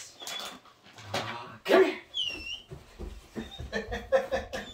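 Homemade wooden carpet mill under a dog, its carpet belt and PVC rollers knocking and rumbling as the dog steps on it, with a short high squeak about two seconds in.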